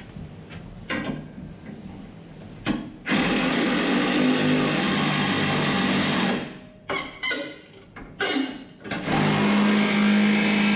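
Power impact wrench running the blade bolts on a feed mixer's auger. It runs for about three seconds, gives several short bursts, then runs for about two more seconds, with a few faint clicks before the first run.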